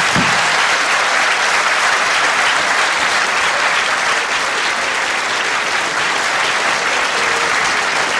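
Audience applauding steadily after a joke's punchline: dense, continuous clapping with no break.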